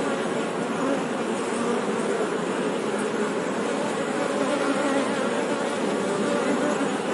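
Honey bees buzzing steadily, several overlapping wavering hums at slightly different pitches.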